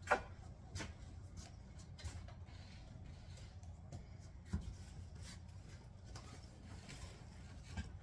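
Handling noises: scattered light knocks and rubbing as objects are put down and picked up, the sharpest knock right at the start, over a low room hum.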